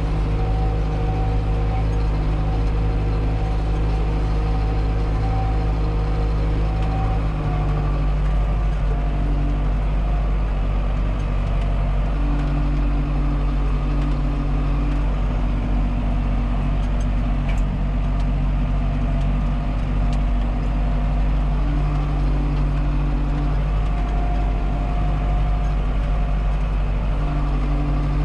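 Tractor engine running steadily while pulling a disc harrow through ploughed clods. The engine note shifts slightly a few times.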